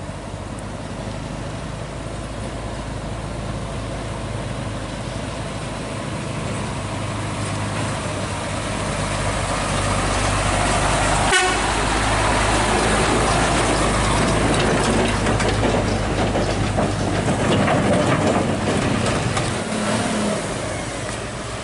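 Heavy diesel engine of a Hino 500 FM320TI truck running as the truck and its low-bed trailer drive slowly past. It grows louder as the truck nears, is loudest for several seconds after a sharp knock about halfway through, then eases off.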